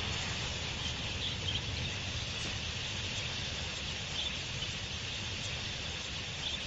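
Steady outdoor nature ambience: a continuous insect chorus, with a low rumble underneath.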